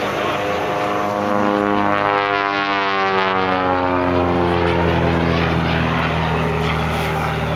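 Single-engine aerobatic propeller plane flying a low pass over the water, its engine droning steadily. About two seconds in the tone takes on a sweeping, phasing swirl that rises and falls as it goes by.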